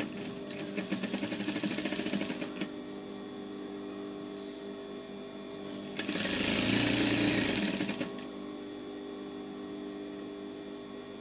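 Industrial flatbed sewing machine stitching a seam in two runs: a fast, even run of stitches in the first two and a half seconds, and a louder run about six to eight seconds in. A steady hum carries on between the runs.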